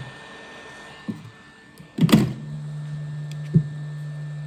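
A heat gun blowing, which cuts out with a knock about a second in. A loud sharp knock follows about two seconds in, and then a steady low electric hum.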